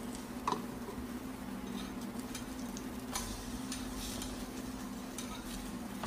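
Steady electrical hum with scattered light clicks and crackles over it, including one sharp click about half a second in.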